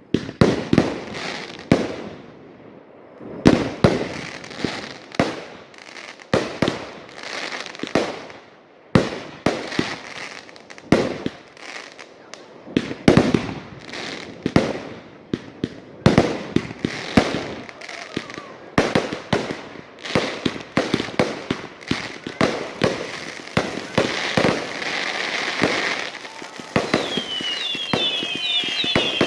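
Fireworks going off: an irregular, rapid run of sharp bangs and pops, some ringing on after the report, turning denser and crackly toward the end, where short whistling glides join in.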